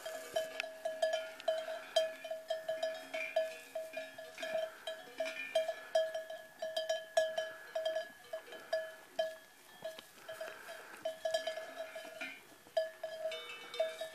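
Cowbells worn by grazing cattle clanking irregularly, a few strikes a second.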